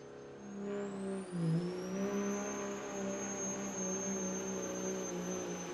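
A pulling truck's engine running steadily, with a high whine that rises about a second in and then holds.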